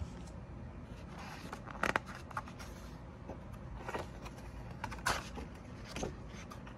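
Paper pages of a hardcover picture book being handled and turned: a few short papery rustles and taps, the loudest about two seconds in, with a page flipped near the end.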